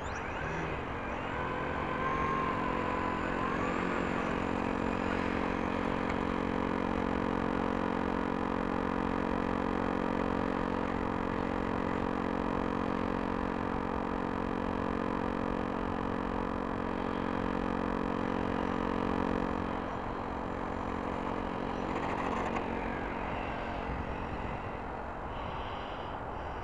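Electric motor and propeller of an Aerodrome RC Fokker model biplane running at a steady pitch under power for the take-off run and climb, with a brief rising whine as it spools up about two seconds in. The note fades after about twenty seconds as the plane flies off.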